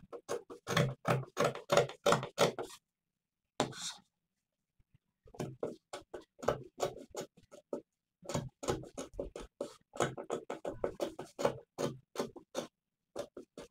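Fabric scissors snipping through lace in quick successive cuts, about six or seven snips a second, with a pause of about two seconds early on before the cutting resumes.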